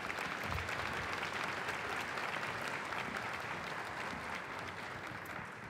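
Audience applauding: many people clapping steadily, tapering off slightly near the end.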